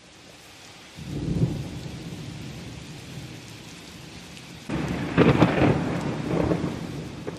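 Steady rain with two rolls of thunder: a smaller rumble about a second in and a louder, longer one about five seconds in.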